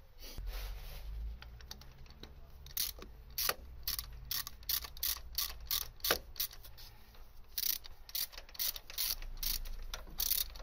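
Ratchet wrench clicking in short, irregular runs as it turns a new spark plug down into the BMW M5's cylinder head, tightening it just enough to seat.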